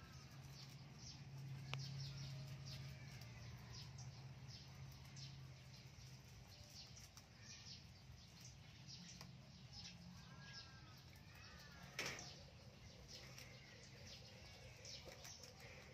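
Faint crisp crunching and leaf rustling as rabbits bite and chew through leafy green stems, with short ticks coming in quick succession. A few bird chirps come about ten to eleven seconds in, and there is one sharper click about twelve seconds in, over a low steady hum.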